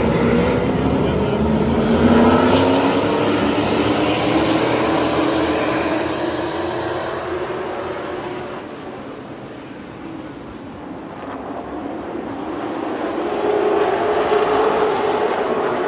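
A pack of Thunder Car stock cars racing around a paved oval, engines at high revs, with the pitch climbing about two seconds in as they accelerate. The engine noise fades to its lowest about ten seconds in as the field goes down the far side, then builds again near the end as the cars come back around.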